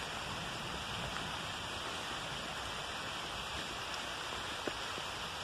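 Steady rain falling through the forest canopy, an even hiss of drops on leaves, with a faint tick or two near the end.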